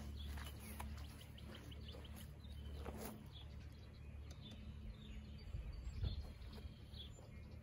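Faint bird chirps over quiet outdoor background noise with a low rumble.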